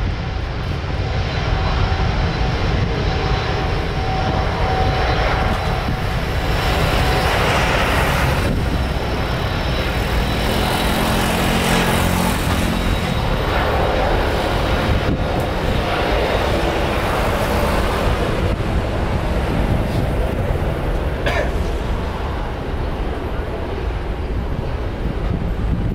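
Twin jet engines of an Airbus A330 airliner running as it taxis: a steady, loud jet rumble with a faint engine whine over it.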